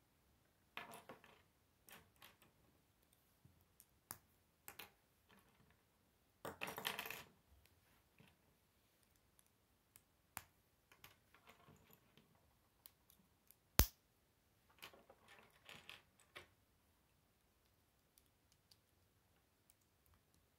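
Plastic K'nex pieces being handled and pushed together: faint scattered clicks and short rattles. One sharp click about 14 seconds in is the loudest.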